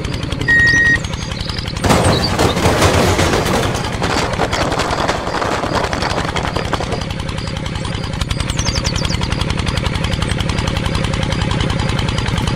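Rapid, steady chugging of a miniature tractor's engine. From about two to six and a half seconds in, a load of gravel stones clatters and slides out of the tipping trailer bed. There is a short high beep about half a second in.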